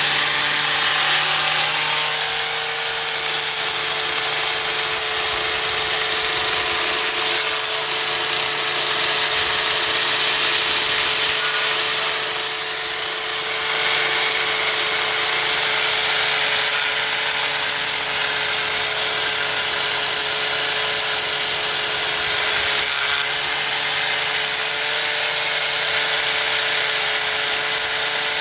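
A small power tool's motor running steadily under load against a broken steel wheel stud, with a high whine and hiss; it eases off briefly about halfway through, then picks up again.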